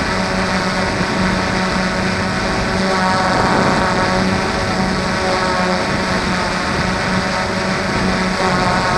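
Electric motors and propellers of a hovering multirotor drone, heard from its onboard camera: a steady, loud buzzing whine whose pitch shifts slightly as the motors adjust to hold the hover.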